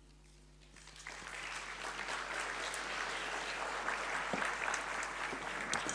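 A seated audience applauding. The clapping starts about a second in after a brief hush, then holds steady.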